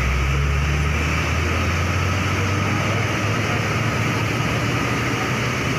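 Intercity coach's diesel engine idling close by, a steady low rumble, with a faint steady high whine running through it.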